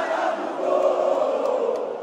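Football crowd chanting in the stands, many voices together.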